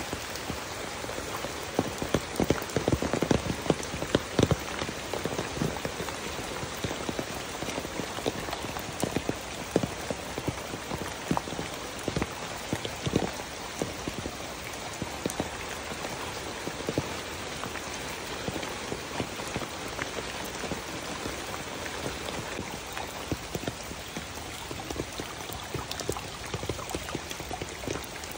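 Steady rain falling on wet ground and foliage: an even hiss dotted with dense pattering drops, briefly heavier a few seconds in.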